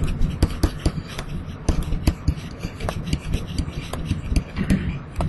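A stylus tapping and scratching on a writing tablet, irregular sharp clicks several times a second, over a steady low background noise.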